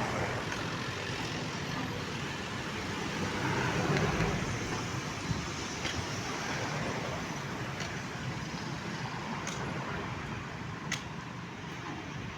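Vibratory roller compactor running steadily while compacting soil, getting louder about four seconds in, with a few sharp clicks later on.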